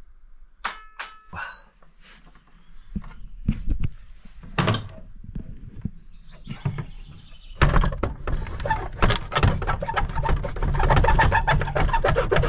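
Clicks, then knocks and clunks of a heavy old wooden door being shut and its iron slide bolt worked by hand. From just past halfway a loud continuous rumble with scraping and rattling runs under the bolt sounds.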